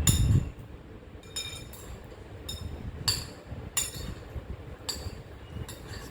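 A low thump at the start, then a string of irregular clinks of a spoon striking a bowl, each ringing briefly, as fruit salad is put together and stirred.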